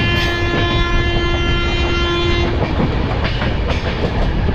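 Train horn sounding as one steady, held tone that stops about two and a half seconds in, over the continuous rumble and wheel clatter of the moving train.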